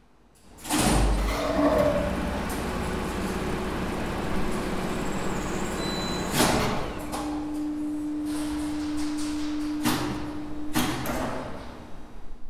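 Two-speed lift hoist machine running through one trip: a clunk as the squirrel-cage motor starts, a steady run, a sharp clack about six seconds in as it drops to low speed with a steady hum, then two more clunks a few seconds later as it stops.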